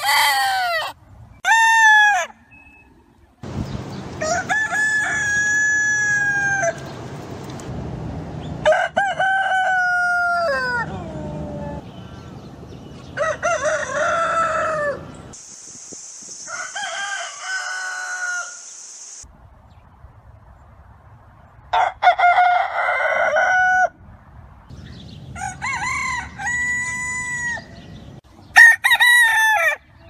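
Rooster crowing repeatedly, about nine cock-a-doodle-doo calls a second or more apart, each holding a pitch and then falling away at the end. The background hiss changes abruptly between calls, as if separate recordings were spliced together.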